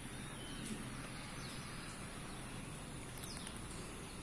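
Steady outdoor background noise with a few faint, short high bird chirps.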